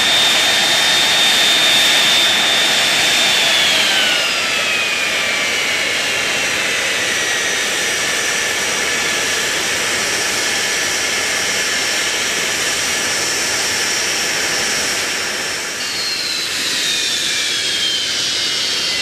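Hawker Siddeley Nimrod's Rolls-Royce Spey turbofan engines running on a ground run, a loud rush with a high whine. The whine glides down in pitch about four seconds in, and a second whine falls away near the end.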